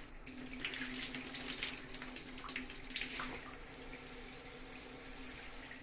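Hydra Ducha Eletrônica electric shower running, its spray hitting the tiles: a steady hiss of water with louder splashing patches in the first three seconds, over a faint steady hum.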